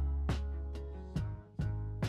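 Background music: plucked, guitar-like notes, about two or three a second, over a steady low bass.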